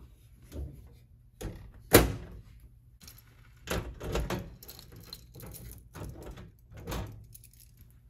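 Steel electrical panel door being shut with a sharp loud thunk about two seconds in, then a bunch of keys jangling and clicking as a key is put into the door's cam lock and turned to lock it.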